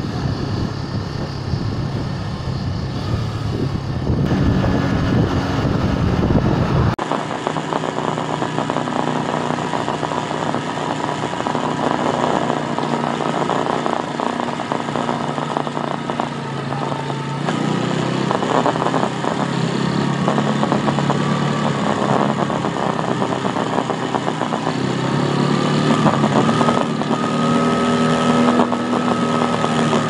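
Bajaj Boxer BM 125 X motorcycle's small single-cylinder four-stroke engine running while riding in town traffic. About seven seconds in the sound changes abruptly, and from then on the engine pitch rises and falls with throttle and gear changes.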